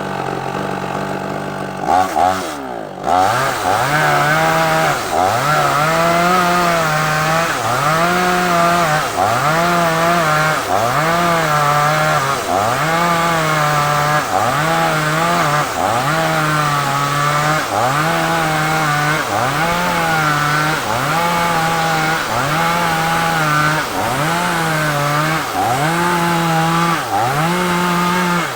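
Two-stroke chainsaw cutting a large sengon log. It runs steadily at first, then about two seconds in it bites into the wood, and the engine note sags and recovers about once a second as the saw is worked through the cut.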